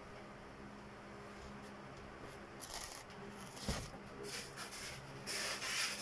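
Loose plastic wrapping rustling and crinkling in repeated bursts from about two and a half seconds in, loudest near the end, over a low steady hum.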